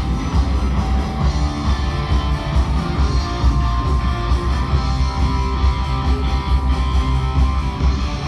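Loud amplified music with electric guitar over a heavy, pulsing bass.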